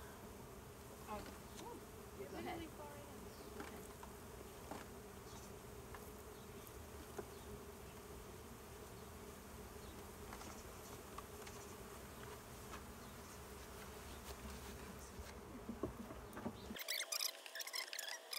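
A feral honeybee colony buzzing as a steady hum. Near the end the buzzing drops away and a run of sharp clicks and crackles takes over.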